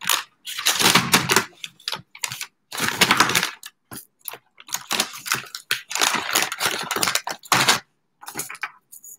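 Paper bag rustling and crinkling in irregular bursts as it is handled and pulled open.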